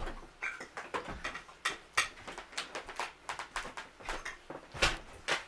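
Bacon frying in a cast iron pan, with irregular sharp pops and crackles of spattering fat.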